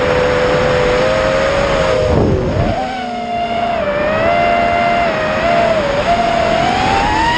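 Brushless motors and propellers of a 3D-printed Birdbone Helium 210-size FPV racing quadcopter whining in flight over a steady rushing noise. The pitch dips sharply about two seconds in, then climbs back and rises higher near the end as the throttle changes.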